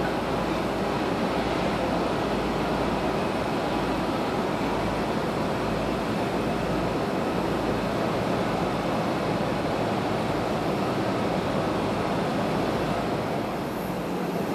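Steady, muffled airport rumble heard from inside a terminal through window glass, with no distinct events.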